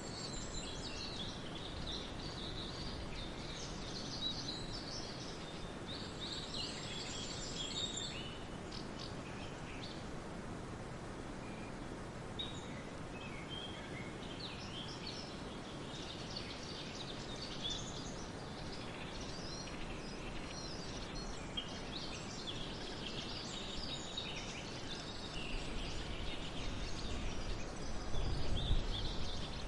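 Forest ambience: several small birds chirping and singing in short, overlapping phrases over a steady background hiss. A low rumble swells near the end.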